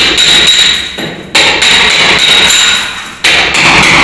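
Rapid hammering on a metal electrical switch box set in a wall, chipping hardened plaster and cement out of it, the box ringing under the blows. The strikes pause briefly twice.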